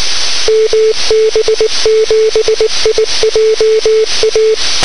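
Morse code received over a 2-metre FM radio through an RTL-SDR receiver: a single steady beep keyed on and off in dots and dashes, over receiver hiss. It is typical of a repeater's Morse identification.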